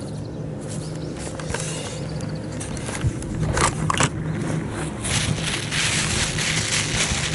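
A plastic bag being handled, with rustling and crinkling that begins about five seconds in and grows louder, after a few sharp clicks from handling. A steady low hum runs underneath.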